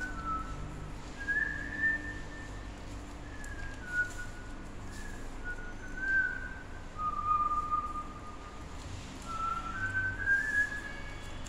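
A person whistling a slow tune: a string of clear single notes, each held about half a second to a second, stepping up and down in pitch.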